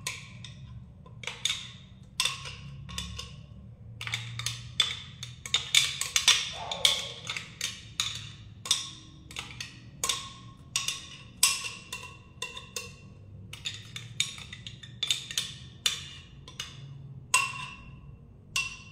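A utensil repeatedly knocking and clinking against cookware as salsa is scraped into a frying pan: irregular sharp knocks, one or two a second, each with a short ringing tone.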